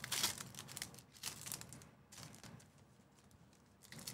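Trading-card pack wrapper crinkling and tearing as it is pulled open by hand: a few short crinkles in the first two seconds, then quieter, picking up again near the end.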